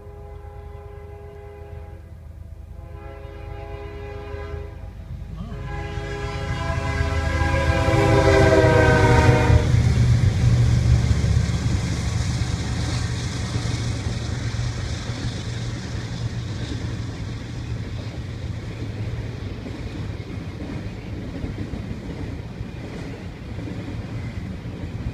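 Freight locomotive horn sounding for a grade crossing in several blasts, the last one long, loudest, and dropping in pitch as the locomotive passes. It is followed by the steady rumble of a CSX double-stack container train rolling past.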